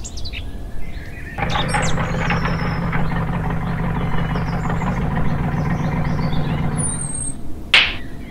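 Ford Super Duty pickup truck's engine running as the truck pulls in, starting about a second in and dropping away near the end, with birds chirping. A brief high squeal follows just before the end.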